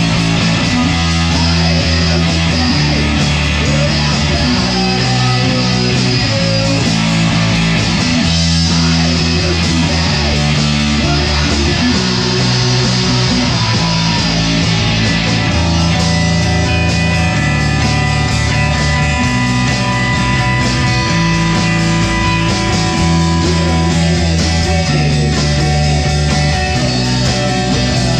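Rock band playing live: two electric guitars, bass guitar and drums. The bass line steps between notes about once a second, and from about halfway through a guitar holds long high notes.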